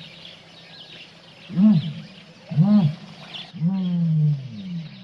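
A large animal calling over and over in low, pitched calls: two short rising-and-falling calls, then a longer call that falls in pitch. Faint bird chirps sit in the background.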